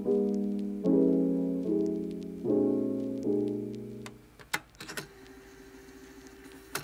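Soft background piano music, a new chord about every second, which stops about four seconds in. After it come a few short crinkles of a clear plastic sleeve being handled.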